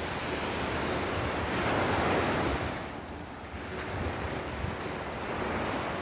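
Surf breaking and washing up a sandy beach, one wave swelling loudest about two seconds in, with wind rumbling on the microphone.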